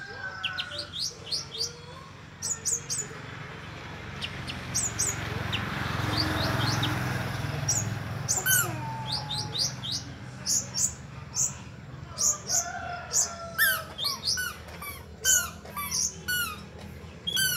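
Olive-backed sunbird (kolibri ninja) singing: rapid, thin, high chirps and sharp sweeping notes in quick bursts, over a steady low hum.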